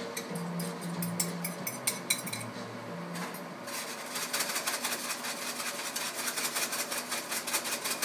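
Scattered clicks of a utensil against a bowl and pan, then from about four seconds in a utensil stirring eggs in a frying pan: rapid, steady tapping and scraping against the pan.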